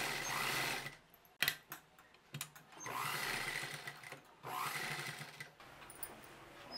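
Sewing machine top-stitching fabric in three short runs, stopping and starting again, with a few clicks in the pauses.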